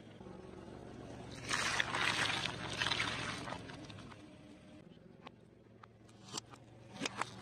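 A car tyre rolling over and crushing small objects: a crunching burst lasting about two seconds, then a few sharp cracks and pops near the end as a plate of jelly beans breaks under the wheel.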